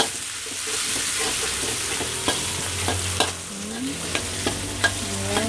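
Halved meatballs and garlic sizzling in hot oil in a wok, with a spatula scraping and clicking against the pan as they are stirred.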